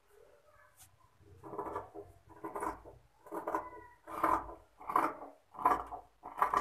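Tailor's scissors cutting through stacked layers of blouse fabric. There are about seven snips in a steady run, a little over one a second, starting about a second and a half in.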